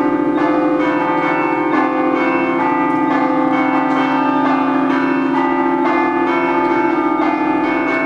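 Church tower bells played in the Friulian scampanottata style: several bells struck by hand in a fast, repeating rhythmic pattern, their tones ringing on over one another.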